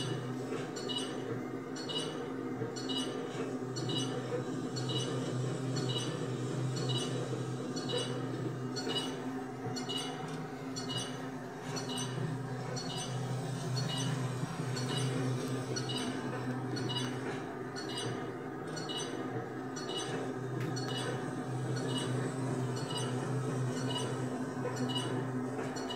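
1992 game-show countdown timer ticking once a second as its red LED display counts down, each tick short, high and clinking. A steady low hum runs underneath.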